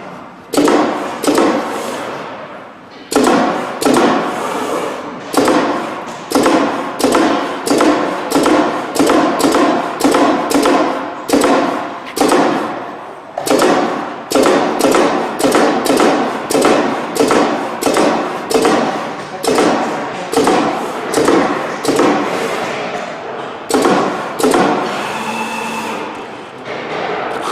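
Background music with a steady beat: regular percussive hits with ringing, pitched decays, a little more than one a second.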